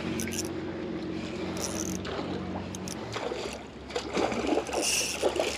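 A steady low hum for about three seconds. Then, from about three and a half seconds in, a couple of seconds of irregular water splashing: the hooked bonito thrashing at the surface during the fight.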